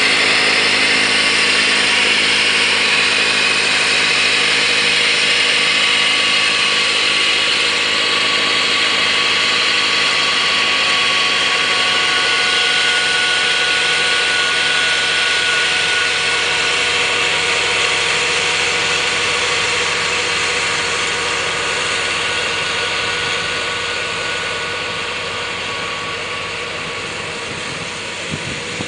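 Kubota B3030 compact tractor's three-cylinder diesel engine running steadily under load while its front-mounted snowblower throws snow. The sound slowly fades in the last third as the tractor moves away.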